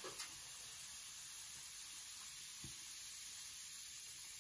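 Steady faint fizzing of a baking soda and vinegar reaction as vinegar is poured in and the foam bubbles up, with a soft knock just after the start and a short low thump a little past halfway.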